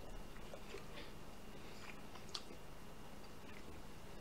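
Quiet eating sounds: faint chewing and scattered light clicks of wooden chopsticks against the plate, with one sharper click about two seconds in, over a faint steady hum.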